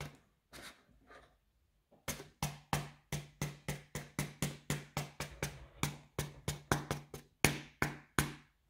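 Hand-pumped marker spray tool being slapped over and over, each stroke giving a short puff and thud as it blows green marker ink. A few strokes come, then a short pause, then a steady run of about four strokes a second from about two seconds in. The harder each slap, the more colour comes out.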